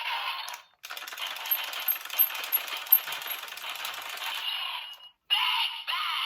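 Toy Geartlinger blaster from Zenkaiger with a gear set on its Kikai side: a click, then about four seconds of rapid rattling clicks as the gear is spun. Near the end come short electronic sound effects from the toy's small speaker.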